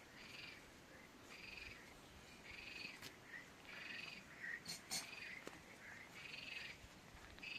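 Faint animal calls: a buzzy call about half a second long, repeated about once a second, with a few short chirps and clicks in between.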